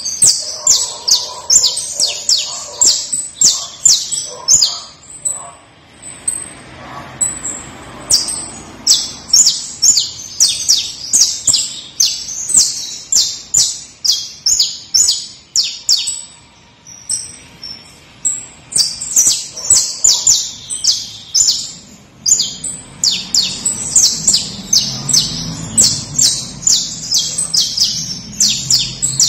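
Saffron finch singing: long phrases of rapid, sharp, high-pitched chirps, several a second, broken by short pauses of a second or two.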